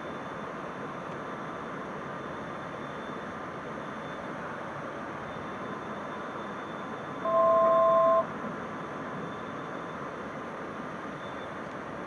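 Steady cockpit noise of the Bristell's Rotax 912 engine and airflow, with a loud one-second electronic beep of two steady tones together about seven seconds in.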